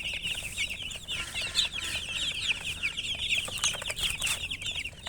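A flock of chicks peeping nonstop, many short high chirps that fall in pitch, overlapping in a dense chorus.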